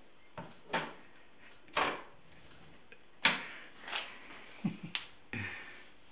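A string of irregular sharp clicks and knocks, about nine of them, the loudest a little past three seconds in.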